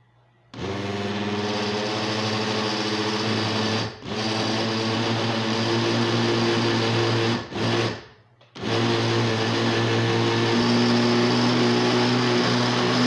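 Electric countertop blender running, blending a thick oat, banana and chia batter with a steady motor whine. It starts about half a second in and cuts out briefly three times, near four seconds and around seven and a half and eight seconds in, before running on.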